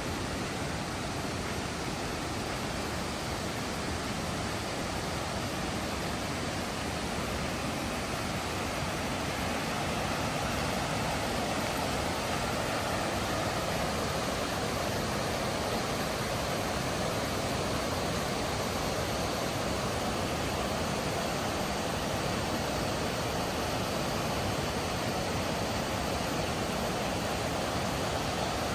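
Mountain river water rushing over rocks in a steady, even roar of white water that grows a little louder about a third of the way in.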